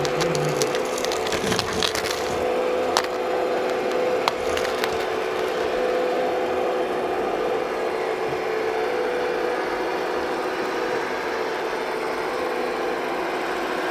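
A MAGOM HRC model excavator's hydraulic pump running with a steady whine. For the first few seconds its steel bucket scrapes and crunches through gravel, with a few sharp stone clicks, before the loaded bucket lifts clear and only the pump is heard.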